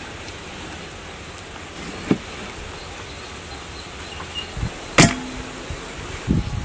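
A large knife slicing raw pork belly on a wooden board, its blade knocking on the wood now and then. One loud sharp knock comes about five seconds in.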